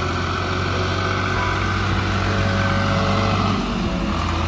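Swaraj 855 FE tractor's diesel engine running steadily as it pulls away with a trailer. The engine note breaks off briefly about three and a half seconds in, then carries on.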